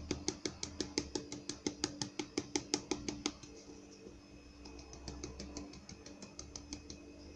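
A hand-held sieve shaken and tapped to sift cornstarch and flour, making quick regular taps, about five a second. The taps are loud for the first three seconds, then go on fainter and more sparsely.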